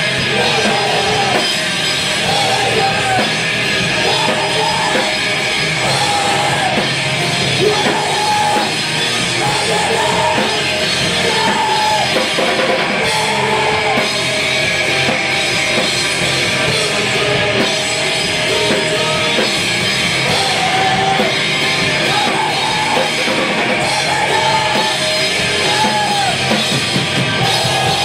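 A screamo/hardcore punk band playing live: distorted electric guitars with bass and a drum kit, loud and dense, with a repeating melodic guitar figure over the top.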